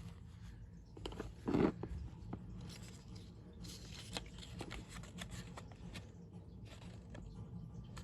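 Handling noise: scattered clicks and rustles over a low steady hum, with one louder thump about one and a half seconds in.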